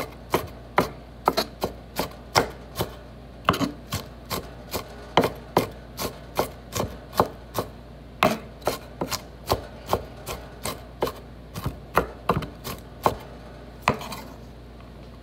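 Kitchen knife chopping onion on a wooden cutting board: quick, even knocks, about three a second, stopping near the end.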